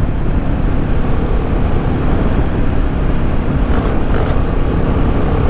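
Royal Enfield Himalayan 450's single-cylinder engine running steadily with the bike under way, under a heavy rush of wind on the microphone.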